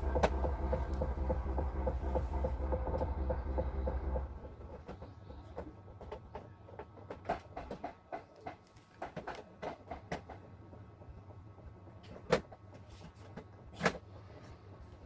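A steady electric hum or buzz that cuts off about four seconds in, followed by scattered light clicks and taps, with two sharper clicks near the end.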